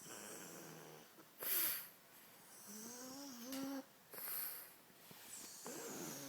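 A pug snoring: pitched, wheezing snores alternating with loud hissing breaths, about one breath every two seconds. This is the noisy breathing typical of a flat-faced dog's narrow airway.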